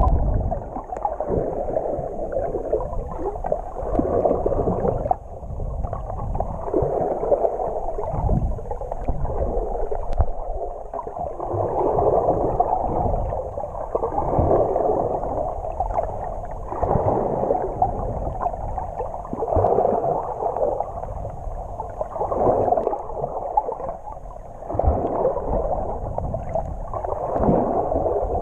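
Water moving against a GoPro's waterproof housing underwater, heard muffled: a gurgling, rushing sound that swells every two or three seconds, with low thuds.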